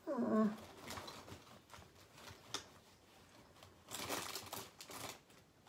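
Rustling and small clicks of small items being handled and sorted through by hand, with a denser stretch of rustling about four seconds in. A brief murmur of voice at the very start.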